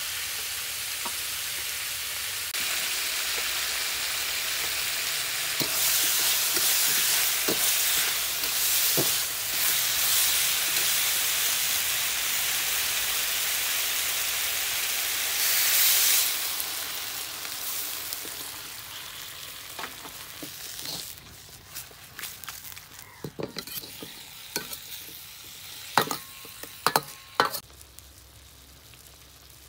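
Vegetables sizzling in a hot carbon-steel wok over a wood fire, the sizzle swelling to a brief surge about halfway through and then dying down as liquid pools in the pan. In the last third, a metal spatula knocks and scrapes against the wok several times.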